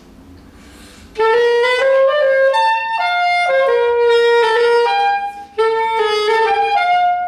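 Solo saxophone playing a dance tune as a melody of separate held notes, starting about a second in and pausing briefly about five seconds in.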